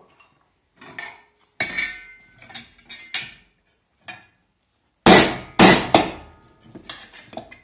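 Hand hammer striking a hardened steel punch to drive a hole through 2 mm mild steel sheet laid on a hardwood end-grain block. The strikes come in an irregular run, some with a short metallic ring. The two hardest blows land about five seconds in, and lighter taps follow near the end.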